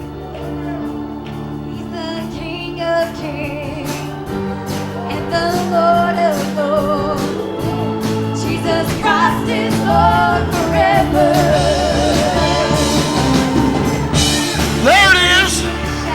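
Live gospel worship music: a band with drums playing under voices singing with vibrato, building louder toward the end.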